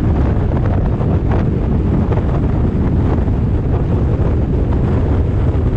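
Wind buffeting the microphone of a hood-mounted camera on a car moving at road speed: a steady, low rush.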